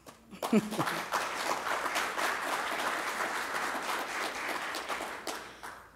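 Audience applauding, a dense patter of hand claps that starts about half a second in and dies away just before the end.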